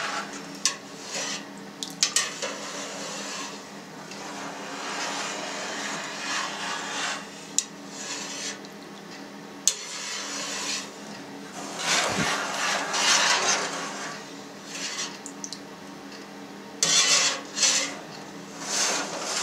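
Stainless-steel wire curd harp drawn back and forth through soft cheese curd in a steel pan, cutting it into small grains. It makes a swishing, scraping noise as the wires rub against the pan, with a few sharp metallic clicks.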